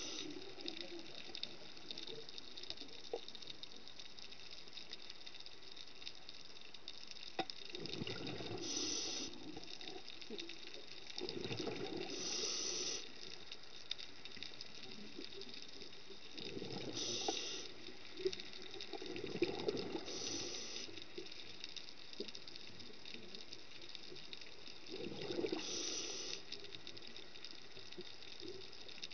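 Scuba diver breathing through a regulator underwater: about five breaths, each a burst of bubbling with a hiss, every few seconds, over a steady faint crackle.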